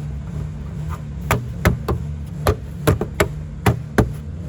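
A series of sharp clicks and knocks, about nine in three seconds at an uneven pace, as a cap or cover is snapped and fitted back in place in a car's engine bay, over a steady low hum.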